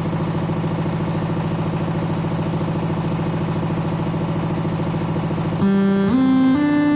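An engine idling steadily with a rapid, even pulse. About five and a half seconds in, loud electronic tones stepping upward in pitch start playing through the sound system's speakers.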